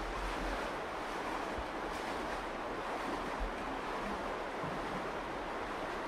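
Steady rushing of the Virgin River's shallow water flowing through the canyon, with a few brief low rumbles of wind on the microphone.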